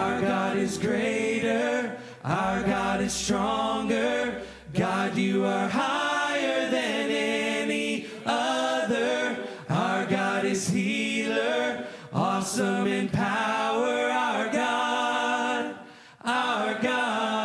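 A congregation singing a worship song together, with little or no instrumental accompaniment, in sung phrases of two to four seconds with brief breaks between them.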